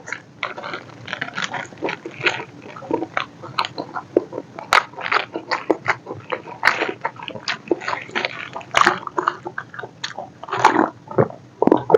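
Close-miked eating: wet chewing and biting with a dense run of irregular smacks, clicks and crunches.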